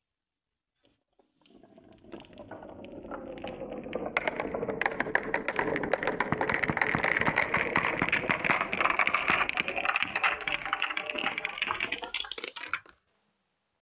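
Dozens of glass marbles rolling down carved wooden serpentine tracks, a dense clatter of clicks as they knock against each other and the wood and drop into plastic toys at the bottom. It builds up over the first few seconds and cuts off suddenly near the end.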